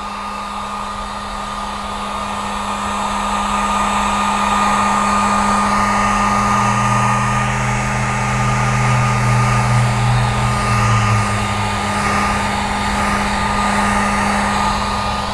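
Handheld electric heat gun running steadily, its fan blowing hot air over carbon-fibre vinyl wrap on a car's interior trim piece to post-heat it. A steady blower noise with a constant hum.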